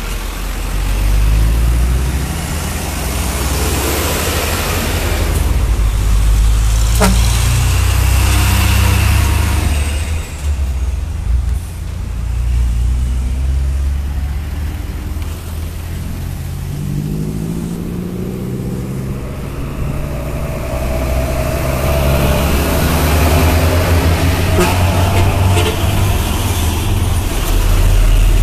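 Water tanker trucks and cars of a convoy driving past close by, their engines running with a heavy low rumble; about two-thirds of the way through one engine climbs in pitch as it accelerates away.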